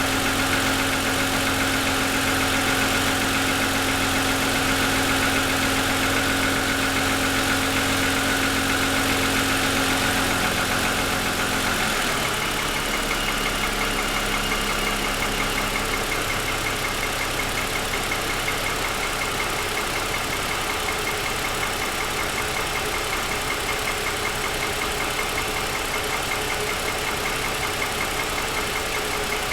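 2007 Lexus ES350's 3.5-litre V6 idling with the hood up, with a knocking rattle of piston slap, which the owner blames on a design or production defect and hears for about ten minutes after a cold start. The sound shifts slightly about twelve seconds in.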